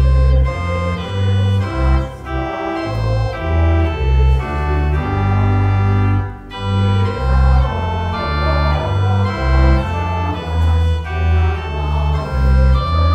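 Organ playing a slow piece of held chords over deep bass notes.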